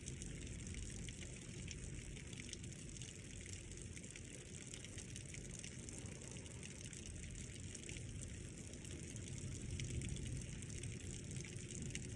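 Rain falling steadily in a thunderstorm, a continuous hiss scattered with sharp individual drop impacts, over a low rumble.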